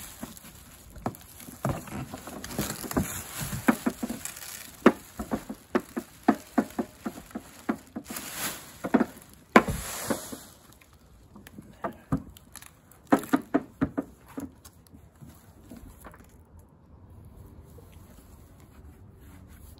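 Plastic bag liner rustling and crinkling, with scattered sharp crackles and knocks, as a cooler is lifted out of its cardboard box. It dies down to faint rustles for the last few seconds.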